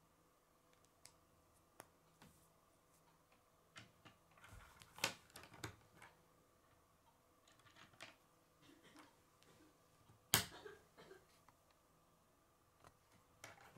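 Sparse clicks and taps of plastic K'nex rods and connectors being handled and set down on a wooden tabletop. A cluster of clicks comes about five seconds in, and one sharp click about ten seconds in is the loudest.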